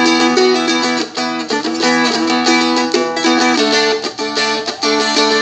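Seagull Merlin, a four-string strumstick, strummed in a steady, funky rhythm, with a change of chord about three and a half seconds in, from the D to the E of the song's two-chord pattern.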